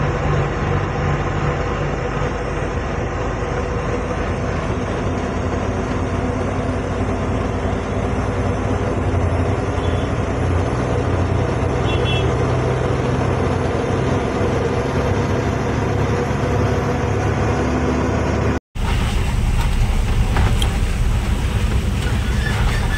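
Loaded goods truck's diesel engine running steadily with road and tyre noise, heard from inside the cab while cruising on a highway. The sound drops out for an instant about nineteen seconds in and comes back noisier.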